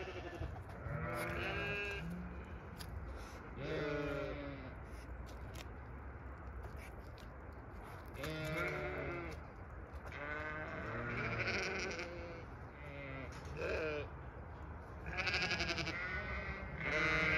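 Zwartbles sheep bleating, about eight calls spread over the stretch, some deep and some higher-pitched.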